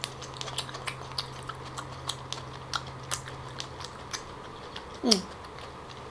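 Close-miked chewing of lobster meat with the mouth closed: soft wet clicks every half second or so, then a short falling "mm" about five seconds in.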